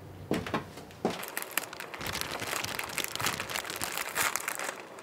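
Plastic bags and wrappers crinkling and rustling as hands unpack food on a table, a dense run of crackles from about two seconds in, after a couple of short rustles near the start.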